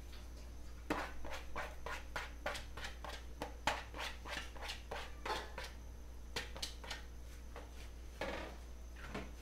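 Chopped tamarind leaves sprinkled by hand into a pan of simmering broth: irregular small clicks and pops with a few soft rustles, over a steady low hum.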